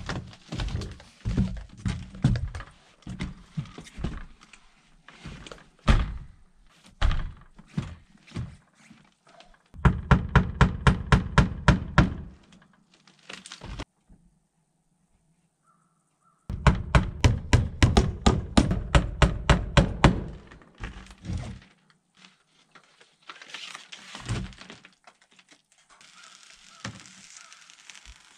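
Knocks and thuds of a window unit being set into its rough opening and fastened, including two runs of fast, even knocking at about seven a second. Near the end a quieter rustling of flashing tape being peeled and applied.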